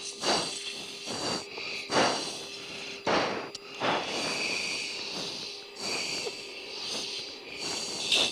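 Heavy, quick breaths into a fighter oxygen-mask microphone, one every second or so, over the steady hum and hiss of the F-16 cockpit.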